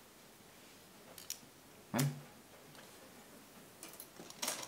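Light clicks and ticks of thin craft wire being bent and passed over itself by hand against a plastic work board. There is one sharper click about two seconds in and a short cluster of ticks near the end.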